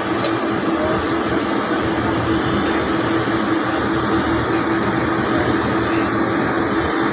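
Boat engine running steadily at a constant pitch, an even drone with no change in speed.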